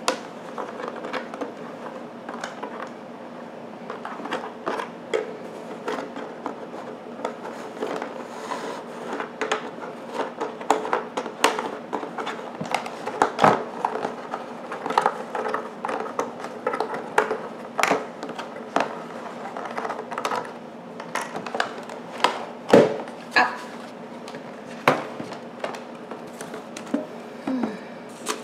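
Handling sounds from opening a cardboard clock box: irregular clicks, scrapes and knocks as the plastic twist-lock fasteners are turned out and the box is opened. The clock's plastic back is then handled. A few knocks stand out, the loudest about 23 seconds in.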